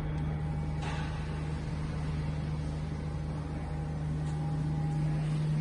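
Twin-spindle CNC router running with a steady machine hum: a low drone with a faint higher tone over it. A brief soft hiss comes about a second in and again past four seconds, and the hum grows slightly louder near the end.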